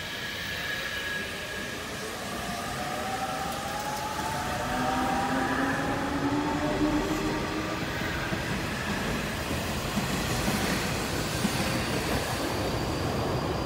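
Nishitetsu 6050 series and 7000 series electric commuter train pulling out and accelerating, its traction motors giving a whine of several tones that climbs steadily in pitch, over the rumble of wheels on rail that grows louder as it picks up speed.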